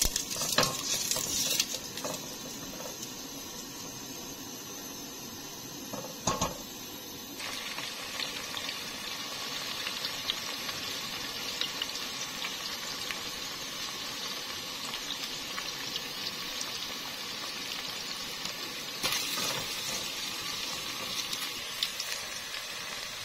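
Sliced onions frying in hot oil in a steel pot, a steady sizzle as they turn golden brown. A wooden spatula stirs and scrapes in the first couple of seconds, with a single knock about six seconds in.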